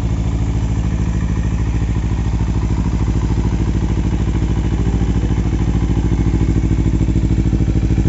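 Kawasaki Z250's parallel-twin engine idling steadily through an aftermarket Termignoni slip-on muffler fitted with a dB killer, an even, pulsing exhaust note.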